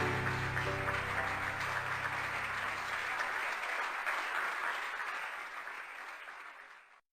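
Background music ending: its last held notes die away over about three seconds, under a dense crackling hiss like applause that fades out and cuts off abruptly near the end.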